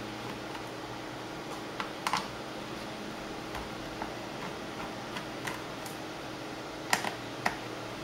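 Light, irregular clicks and taps of a small screwdriver and tiny screws against a laptop's plastic bottom case as its screws are backed out, the loudest a quick cluster of three about seven seconds in, over a steady hum.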